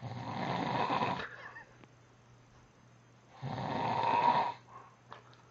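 A man snoring loudly in his sleep: two long snores, each just over a second long, about three seconds apart.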